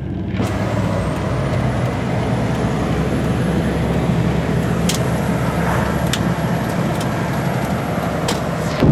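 Heavy truck's engine running steadily under load while overtaking, heard from inside the cab with road and wind noise. A thin high whine rises about a second in and then holds, there are a few light clicks in the middle, and a loud burst comes at the very end.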